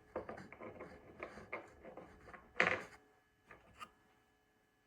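Small plastic figures and their packaging being handled on a table: a run of light clicks and rustles, one louder rustle about two and a half seconds in, then two faint clicks.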